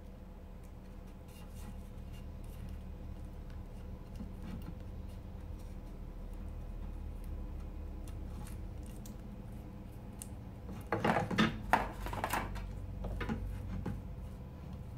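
Hands handling comic-page paper cutouts for decoupage, faint rustles and taps over a low steady hum, with a louder burst of paper noise about eleven seconds in.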